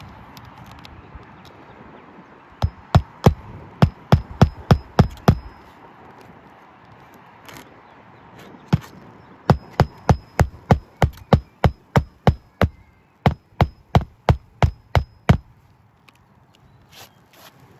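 Hammer striking in two runs of quick, even blows, about three a second, each with a faint metallic ring, as nails are driven during a shingle repair.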